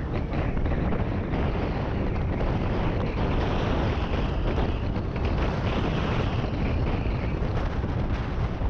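Wind rushing over the microphone of a moving motor scooter, a steady rumbling noise with engine and road noise mixed underneath.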